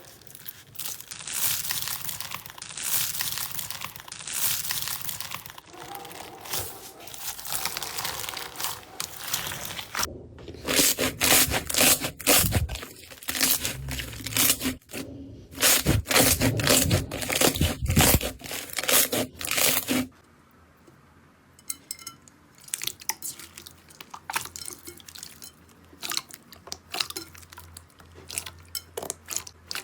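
Slime being squeezed and pressed by hand, with dense crackling and crunching. It grows louder and faster-popping about a third of the way in, then turns to sparser separate clicks and squishes for the last third.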